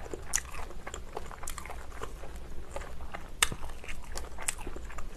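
Chewing and crunching of kimchi, with scattered short crunches.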